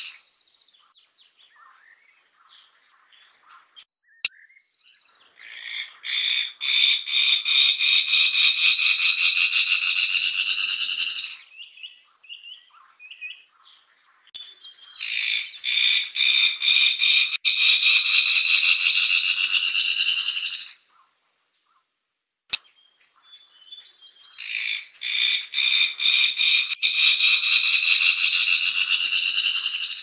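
Fire-tufted barbet calling: three long, rapid buzzing trills of about six seconds each, starting about five, fourteen and twenty-four seconds in, with short scattered notes between them.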